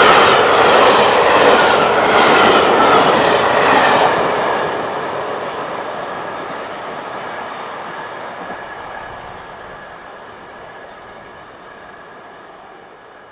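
Pullman passenger coaches rolling past at speed, wheels clattering over the rails, loud for the first few seconds and then fading steadily as the train draws away.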